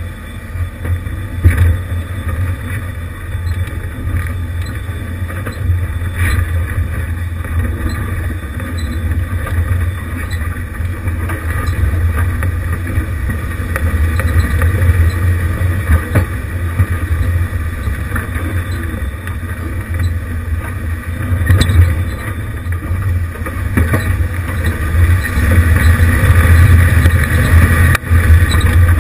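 1988 Jeep Wrangler YJ crawling over loose rock: a steady low engine rumble, with scattered knocks and rattles from the tyres and body on the stones. It gets louder near the end.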